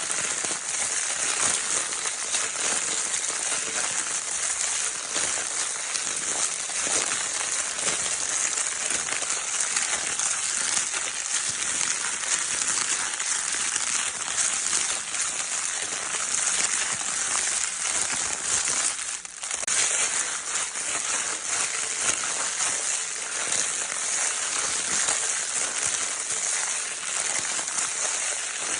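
Crinkle paper from a baby's crinkle toy being scrunched continuously: a dense, steady crackling with a brief lull a little past halfway.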